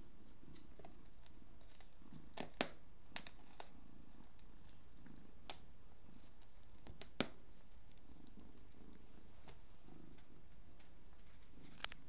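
Domestic cat purring close by, the low purr rising and falling in waves, with a few sharp clicks over it, the loudest about two and a half seconds in, again about seven seconds in and near the end.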